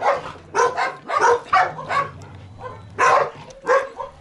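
Dog barking in a quick series of short barks, with a pause of about a second before the last few.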